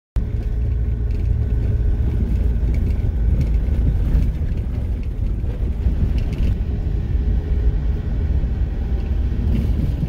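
Steady low rumble of a vehicle driving.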